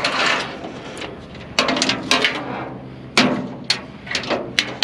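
Metal objects being shifted about on the wooden deck of a utility trailer: a scrape at first, then a string of sharp clanks and knocks.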